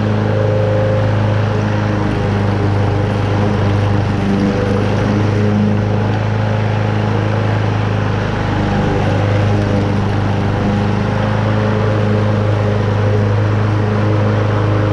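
Toro Super Recycler walk-behind lawn mower's Honda engine running steadily under load, its blade cutting moderately wet, tall grass.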